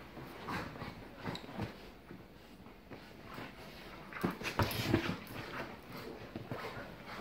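Two dogs play-wrestling: short, irregular dog vocal noises mixed with scuffling, loudest in a flurry about four to five seconds in.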